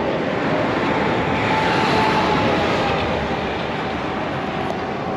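Heavy road-vehicle noise, swelling to its loudest about two seconds in and easing after, with a faint whine that slowly falls in pitch.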